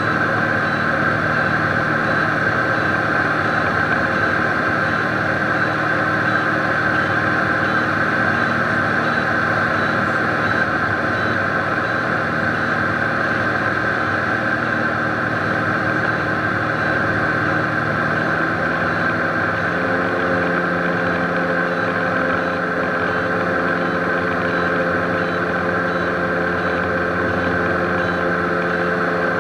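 Cabin noise of a Beechcraft Baron B55 in flight: a steady drone of piston engine and propeller. The right engine is shut down and its propeller stops and feathers, leaving the left engine running alone. About two-thirds through, the engine's pitch steps up slightly.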